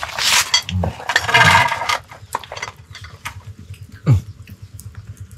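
Dishes and chopsticks clinking, with short noisy bursts in the first two seconds and a brief falling call about four seconds in.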